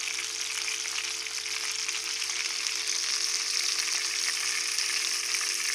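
Parrot fish frying in hot oil: a steady sizzle with fine crackling and spitting.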